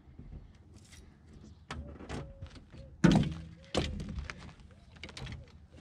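Hollow knocks on the boat while a landing net is handled to land a hooked smallmouth bass. A few light taps lead up to one loud thunk about halfway through, and a second one follows under a second later.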